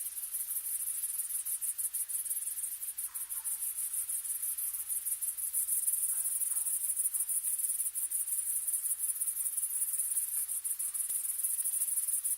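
Insects chirring in a steady, fast-pulsing, high-pitched trill, with two faint short sounds about three and six seconds in.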